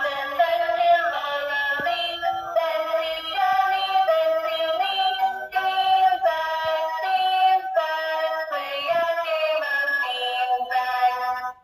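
Electronic toy money box playing a tinny synthesized tune of steady, stepped notes after money has been put in. It cuts off suddenly near the end.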